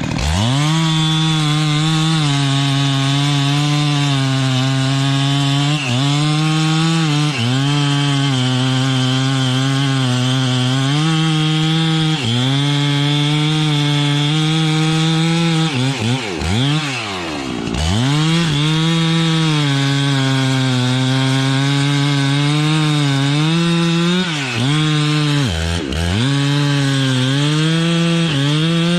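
Chainsaw running at high revs and cutting wood. It revs up at the start and dips briefly under load now and then. Near the middle the engine drops toward idle for about two seconds and revs back up, and it does so again more briefly near the end.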